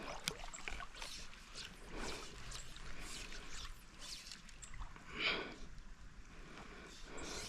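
River water sloshing and trickling, with scattered small splashes and a brief louder swish about five seconds in.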